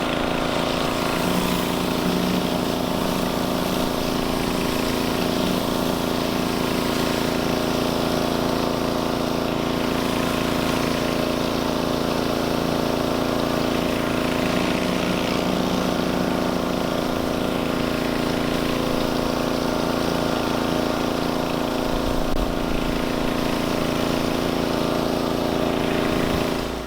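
Pressure washer running steadily at a constant pitch while driving a surface cleaner.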